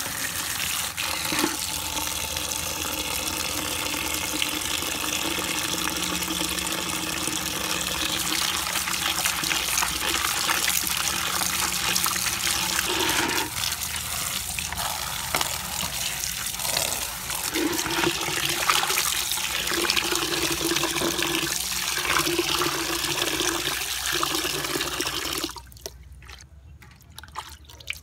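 Tap water running steadily and splashing onto a plastic colander and into a bucket as chopped greens are rinsed by hand. The running water stops near the end.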